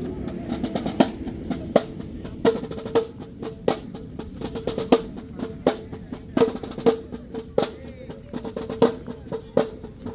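Marching band drumline playing a cadence: sharp snare drum strikes and rolls over bass drums, keeping a steady march beat.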